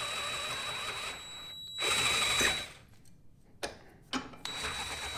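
Cordless drill spinning a step drill bit, drilling out the slot of a metal mounting bracket to 5/16 inch. It runs steadily with a high whine, stops about a second in, gives a louder burst around two seconds, then after a couple of light clicks runs again near the end.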